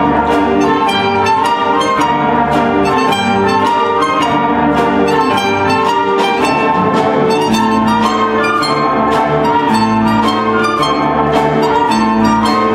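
Live orchestra led by brass (trumpets, trombones, tuba) with double basses, playing a hasapiko, the Greek butcher's dance, to a steady beat.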